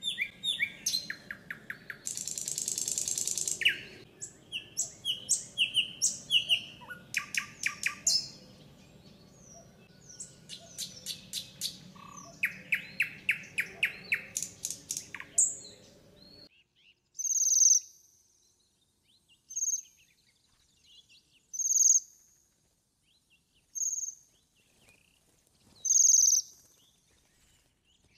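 Songbirds singing: rapid trills and short whistled phrases from several birds over a faint low hum, cut off suddenly about two-thirds of the way in. After that, a single short high call repeats about every two seconds against near silence.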